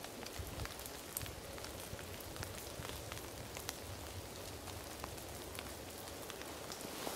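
Light drizzle and thaw drips pattering in a wet winter landscape: scattered soft ticks over a faint steady hiss.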